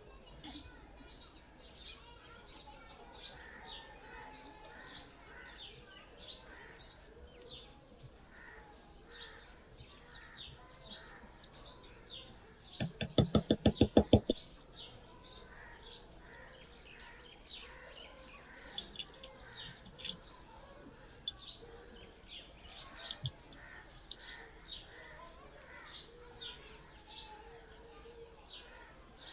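A small bird chirping over and over, short high chirps about twice a second. A little before the middle comes a quick run of sharp clicks lasting just over a second.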